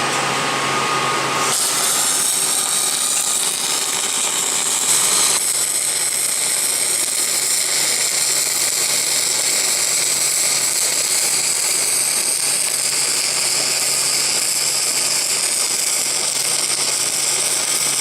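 Steady metalworking noise: a continuous high hiss and whine over a low hum. The sound changes character about a second and a half in, and again around five seconds.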